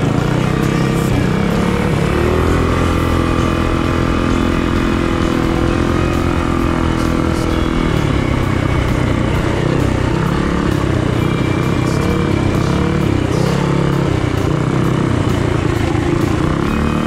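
Minibike engine running hard, heard close up from the bike as it is ridden on a dirt track. Its pitch climbs about two seconds in and holds steady, then rises and falls with the throttle from about eight seconds on.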